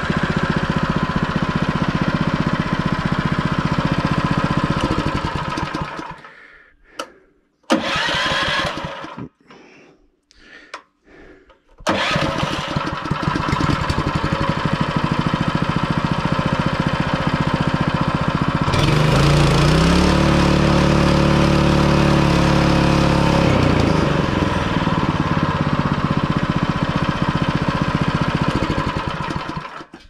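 DuroMax 7 hp single-cylinder gas engine on a bandsaw mill running, then dying away about five seconds in. After a few short bursts it starts again at about twelve seconds. From about nineteen seconds it is throttled up to high speed for about five seconds and then back down, and it is shut off at the very end.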